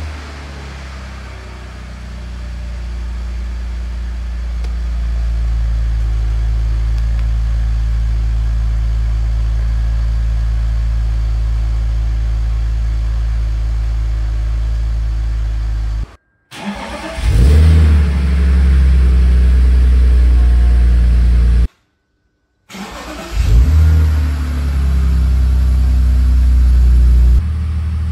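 BMW E46 330Ci's 3.0-litre straight-six just started from cold on its stock exhaust with new catalysts, settling into a steady fast idle that grows louder a few seconds in. The sound cuts out about sixteen seconds in, and two more start-ups follow, each with a short flare of revs before a loud steady idle.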